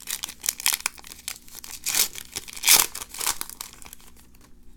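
Plastic wrapper of a trading card pack crinkling as it is handled and torn open, in a series of rustling bursts; the loudest comes just under three seconds in, and it settles to quieter handling near the end.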